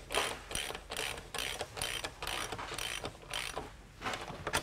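Socket ratchet clicking in repeated back-and-forth strokes, about two to three a second, as it drives a 3/8-inch lag screw into wood. The strokes ease off briefly near the end.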